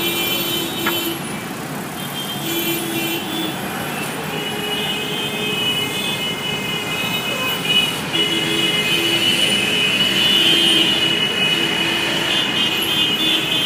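Busy city road traffic: a steady wash of cars and other vehicles, with horns sounding again and again, some held for a second or so. It grows a little louder about halfway through.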